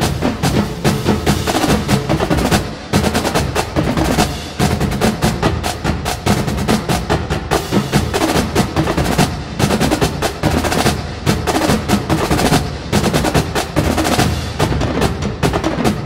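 Percussion-driven music with a fast, steady beat.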